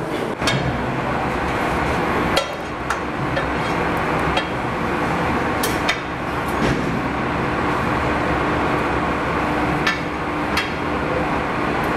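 Mechanical dough-kneading machine running on bread dough: a steady machine hum with irregular sharp knocks and clinks every second or two.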